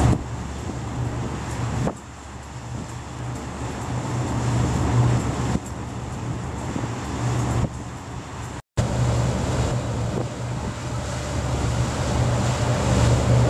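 Steady low engine drone of a river cruise boat under way, with wind buffeting the microphone. The sound drops out for a moment about nine seconds in.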